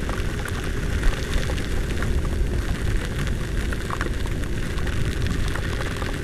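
Wind buffeting and heavy rain hitting a helmet-mounted microphone on a scooter riding through a downpour: a steady low rumble with a wet hiss and scattered raindrop ticks.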